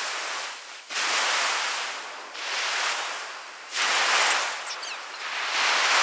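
Sea surf breaking and washing up a pebble beach: a hiss that swells and falls back in about four surges.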